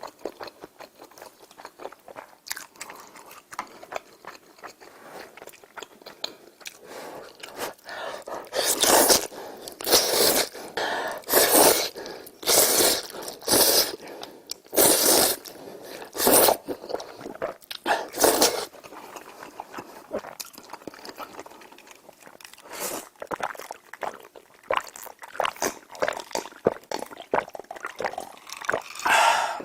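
Close-miked eating sounds: chewing and crunching in short repeated bites, with a string of louder bursts in the middle.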